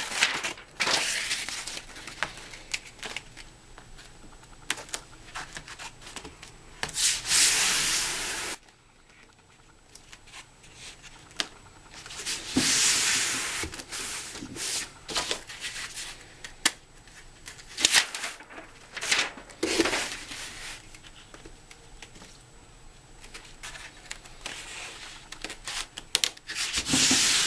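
Hands handling self-adhesive foam edge strips and pressing them onto concrete and wood: several longer rasping rubs and peels, the loudest about seven and twelve seconds in, with scattered taps and clicks between them.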